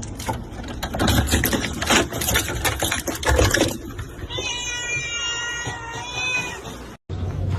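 A domestic cat giving one long, drawn-out meow about halfway through, after a few seconds of scuffling, clattering noise.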